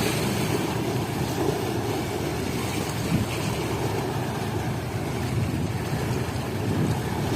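Steady low rumbling wash of sea water in a harbour, even in level throughout, with no distinct strikes or tones.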